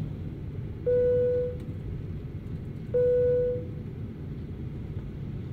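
Two identical single-tone cabin PA chimes about two seconds apart, each ringing and fading within a second. They sound over the steady low rumble of a Boeing 737-800 cabin.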